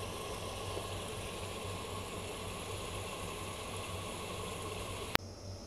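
Sliced onions, tomatoes and green chillies cooking in oil in a pot, a steady bubbling sizzle as the tomatoes soften. A single sharp click about five seconds in, after which the sizzle gives way to a quieter steady hiss.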